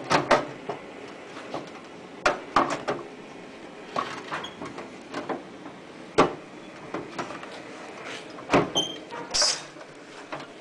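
Zinc flashing pieces being handled and slotted together: irregular knocks and rattles of the sheet zinc, with a brief metallic ring near the end.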